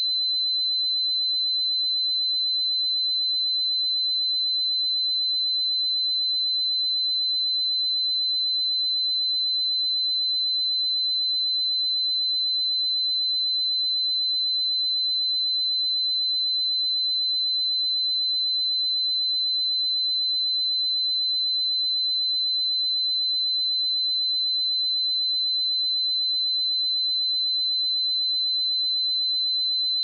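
A single steady, high-pitched 4046 Hz sine-wave test tone, one pure unbroken pitch at constant loudness.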